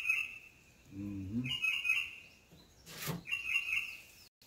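A songbird singing the same short phrase of quick high notes over and over, about once every two seconds. A single sharp knock sounds about three seconds in.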